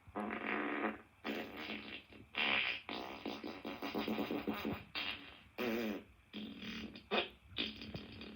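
A rapid string of fart sounds, about ten short blasts one after another, each with a wobbling, sputtering pitch and most under a second long.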